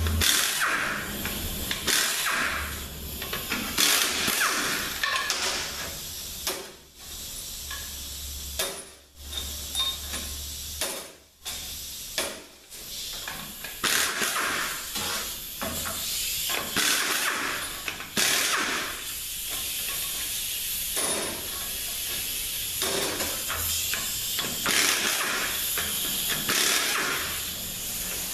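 Hissing noise from work on a transmission on the bench, broken by short knocks and pauses, with a low hum in the first several seconds.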